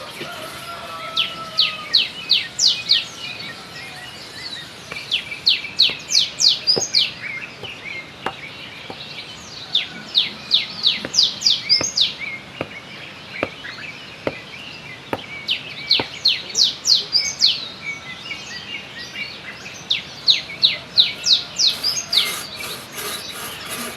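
A bird singing outdoors: repeated bouts of quick, sharp high notes, each bout a rapid series of strokes lasting a second or two, coming back every few seconds.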